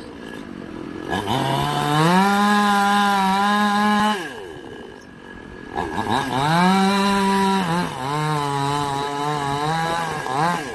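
Two-stroke chainsaw revved up and held at high revs for about two seconds, then dropping back to idle. It is revved again about six seconds in. The pitch settles a little lower and wavers for a couple of seconds, with a quick blip near the end.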